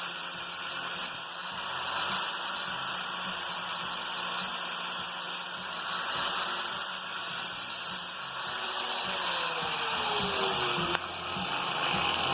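Hyper Tough electric angle grinder running with its wheel grinding the edge of a dull steel lawn mower blade: a steady motor whine under a loud, dense grinding hiss that eases briefly a few times as the wheel is worked along the edge.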